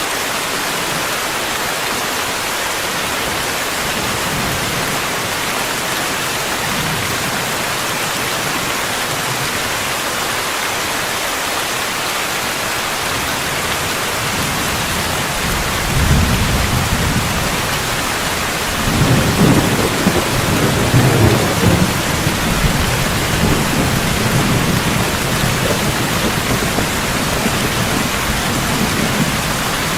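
Steady heavy rain, with a low rumble of thunder coming in about halfway, swelling a few seconds later and rolling on to the end.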